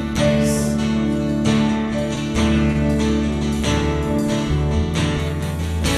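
Worship song played between sung lines: acoustic guitar strumming over sustained low bass notes that change every second or so.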